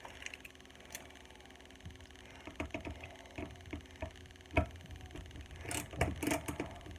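Light clicks and knocks of a screw being driven by hand with a screwdriver into a corrugated plastic board, with one sharper knock about halfway through and a cluster of clicks near the end.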